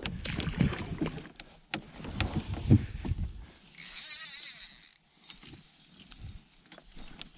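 Rock anchor in a net bag going over the side of a Royalex canoe, with scattered knocks of gear and rope against the hull, then a short hiss about four seconds in.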